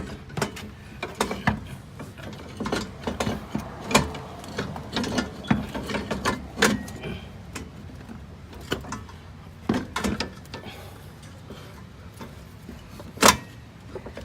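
Irregular metallic clicks and knocks of a car's rear strut assembly and suspension hardware being worked into place, with one louder knock near the end.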